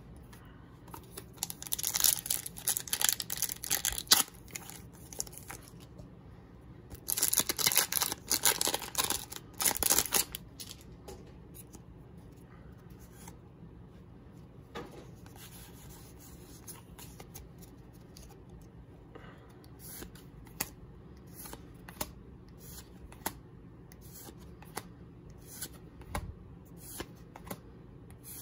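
Foil Pokémon TCG booster pack wrapper being torn open in two long rips a few seconds apart, followed by faint clicks and flicks of cards being handled.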